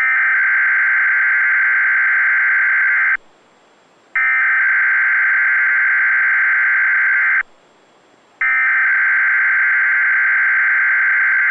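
SAME digital alert header from a weather radio broadcast: three identical bursts of harsh, buzzy data tones, each about three seconds long with about a second between them. This header starts the broadcast of a weather-radio alarm test message.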